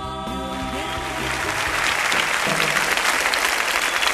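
Studio audience applauding, swelling up about a second in as the backing music fades out.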